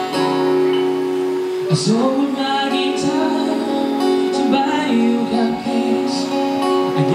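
Acoustic guitar strummed in steady chords while a man sings into a microphone; the sung line comes in about two seconds in, sliding in pitch over the chords.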